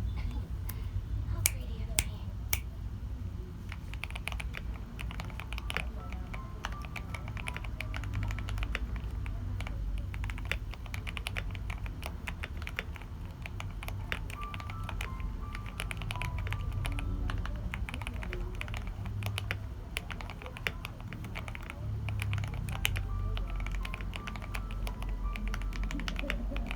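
Typing on a GK68 custom mechanical keyboard: a continuous stream of fast key clicks, with a few sharper, louder keystrokes about two seconds in.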